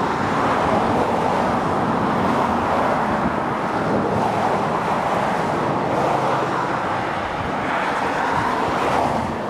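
Steady road traffic noise, a continuous hiss of passing cars that swells and eases a little, with no single vehicle standing out.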